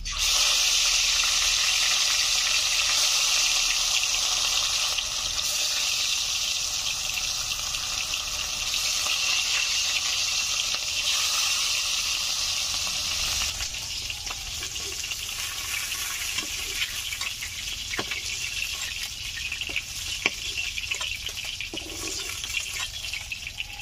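Pieces of rohu fish frying in hot oil in a kadai. A loud, steady sizzle starts suddenly, then drops about 13 seconds in to a quieter sizzle with scattered pops and crackles.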